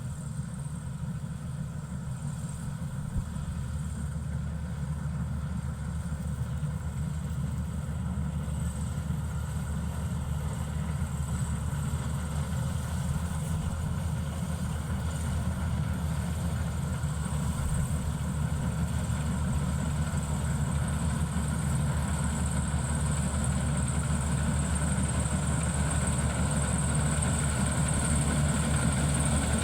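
Maxxi Bimo 102L combine harvester's engine running steadily, growing gradually louder, with a high whine that strengthens near the end.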